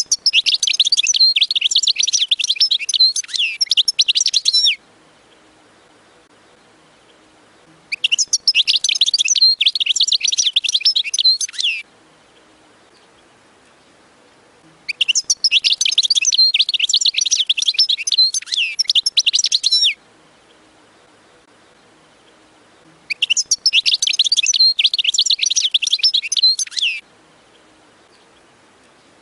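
European goldfinch singing fast, twittering song in four bursts of about four seconds each, evenly spaced with pauses of about three seconds between them.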